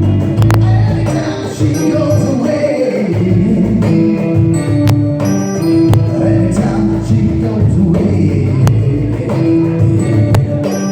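Live band playing a song, with a singer's voice over the instruments.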